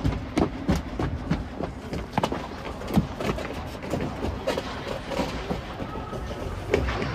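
Field sound from a youth football match: an irregular string of short knocks and thumps, several a second, over a low rumble, with faint distant voices around the middle.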